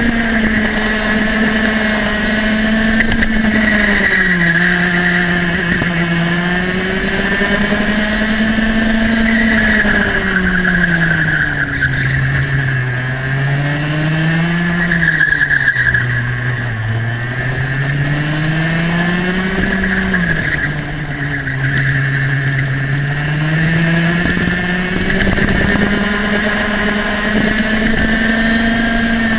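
Two-stroke racing kart engine running at high revs on the straights. Its pitch drops as it slows for corners and climbs back as the throttle opens again, several times over.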